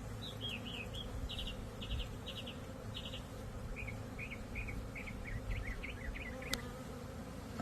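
A honeybee swarm buzzing steadily around its new hive, a low continuous hum. Over the first two-thirds, a songbird sings a run of short repeated chirps.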